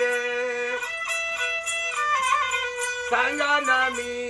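Music of a Marathi devotional song: an instrumental passage of long held melody notes, with a few wavering ornaments past the middle, between sung lines.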